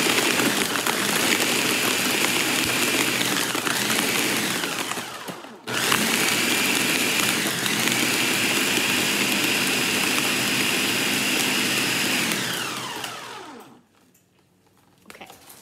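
Countertop blender motor running hard on a thick smoothie of fruit and ice, with a steady high whine. It slows and cuts out for a moment about five seconds in, starts again, then winds down with falling pitch and stops near the end.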